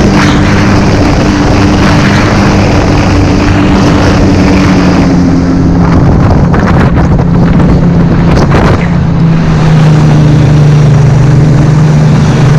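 Snowmobile engine running steadily under way. Its pitch drops slightly about halfway through, then holds.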